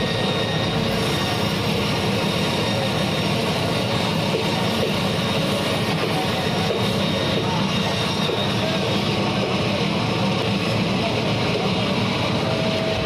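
Band saw running steadily while its blade cuts through a whole stingray.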